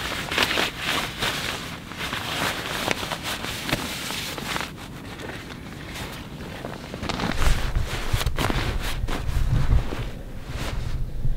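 Nylon sleeping bags being handled and bunched up, a rustling, crinkling swish that is busiest in the first few seconds. In the second half a low rumble comes in and is louder than the rustling.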